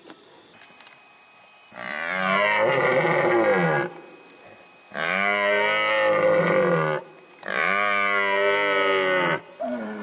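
Red deer stag giving its rutting roar three times, each a long, deep call of about two seconds that drops in pitch at the end, with short pauses between.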